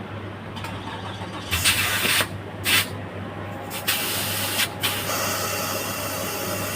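Compressed air hissing from an air-line fitting that won't grip, so the air escapes instead of going in. It comes as a few short blasts, then a longer steady hiss from about five seconds in.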